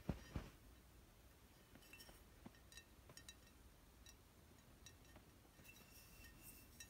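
Light tapping on a glass wine bottle held in the hand. After a soft bump or two as the bottle is handled at the start, a scatter of small taps follows from about two seconds in, each with a brief glassy ring.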